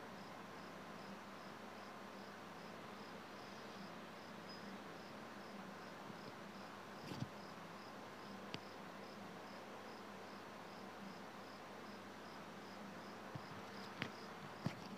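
A cricket chirping steadily in a regular pulse over a faint background hiss, with a few faint knocks about halfway through and near the end.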